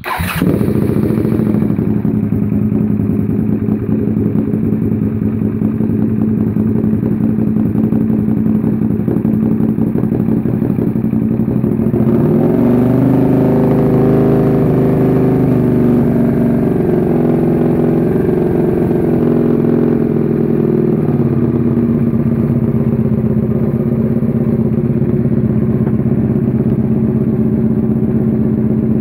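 Suzuki SV650's 645 cc 90-degree V-twin firing up on its first start after a rebuild and running steadily. About twelve seconds in the revs rise and are held higher for several seconds, then drop back to a steady idle.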